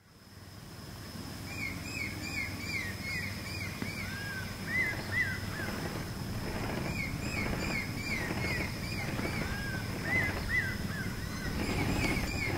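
Birds calling: runs of short arching chirps repeated a few times a second, over a steady high whine and a low steady hum. The sound fades in at the start.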